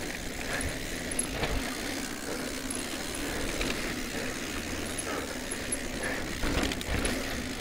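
Cube Stereo Hybrid e-mountain bike descending a dirt trail at speed: tyres rolling over dirt and rock with a steady rumble and rattle from the bike, and a few sharp knocks over bumps.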